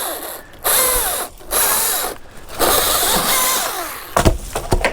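Stihl MS-261 two-stroke chainsaw revving in three bursts during a cut, its pitch dropping off between them, followed by a few sharp knocks near the end.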